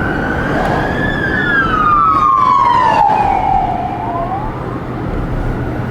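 Emergency vehicle siren wailing: the tone climbs, slides slowly down over about three seconds, then starts to rise again near the end. Under it runs a steady low rumble of vehicle noise.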